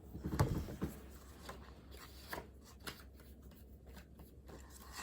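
Light rustling and scattered small clicks and knocks of things being handled, with a louder burst of rustling about half a second in.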